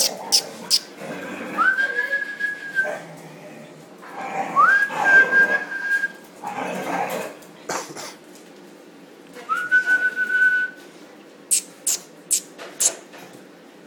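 Three whistles, each sliding up and then held on one steady note for about a second, among a crowd of dogs and puppies scuffling and yapping. A few sharp clicks come near the end.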